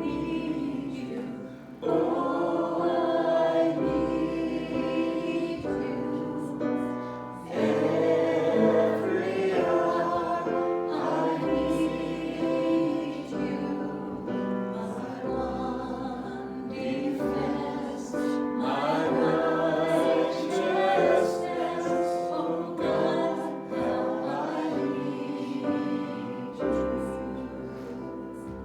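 A group of voices singing a gospel song together, with long low bass notes underneath.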